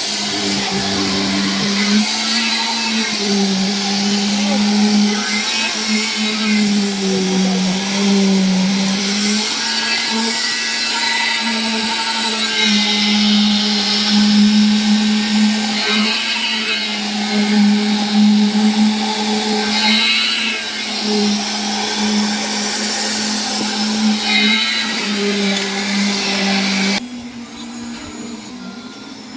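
High-speed electric motor of a power tool running continuously, its pitch dipping and recovering slightly as if under load, then cutting off about two seconds before the end.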